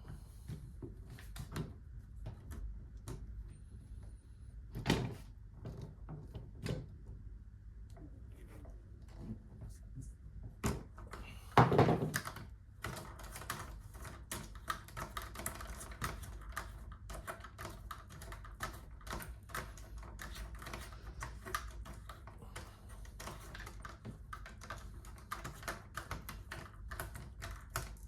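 Hard plastic parts of a car seat's anti-rebound bar being handled and twisted by hand: scattered clicks and knocks, a louder knock about twelve seconds in, then a long run of rapid light clicking.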